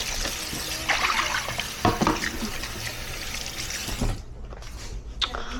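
Kitchen tap running into a sink, with a few knocks of dishes or utensils, shut off about four seconds in.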